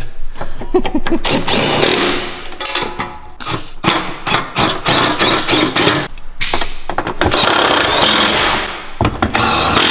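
Cordless impact wrench hammering on exhaust bolts, in several bursts of rapid rattling.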